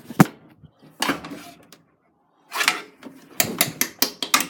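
Clothes being loaded into the drum of a Samsung Diamond Drum front-loading washing machine: fabric rustling with a series of knocks and clicks, the sharpest knock just after the start and a quick run of clicks near the end.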